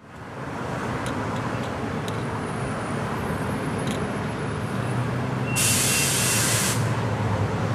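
Bus engine running with a steady low rumble, and a loud hiss of its air brakes releasing about five and a half seconds in, lasting about a second.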